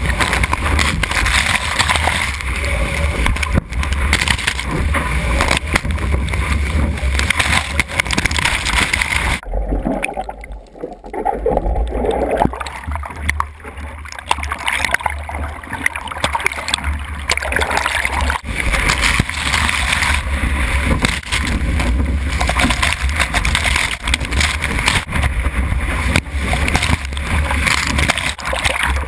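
Rushing, splashing water and buffeting against a GoPro mounted low on the tail of a surfing longboard, with a heavy low rumble. For a couple of seconds about ten seconds in, the sound goes dull and quieter.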